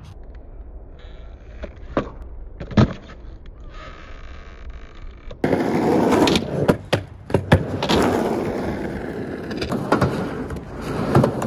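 Skateboard on concrete: two sharp pops and clacks of the tail and wheels, typical of a pop shuvit attempt. After a cut about five seconds in, a skateboard's wheels rolling loudly on a skatepark ramp, with repeated sharp slaps and clacks of the board.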